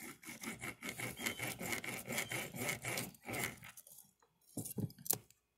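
Steel snare cable being worked back and forth against a nail on a wooden table, a rapid rasping scrape, to 'load' the snare so its lock closes quickly. The scraping stops about three and a half seconds in, followed by a few light clicks.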